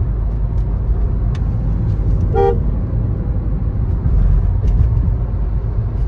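Steady low rumble of a car driving, heard from inside the cabin, with one short car-horn toot about two and a half seconds in.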